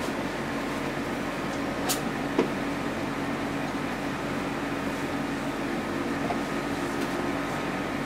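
Steady mechanical room hum with a faint tone in it, and two light clicks about two seconds in.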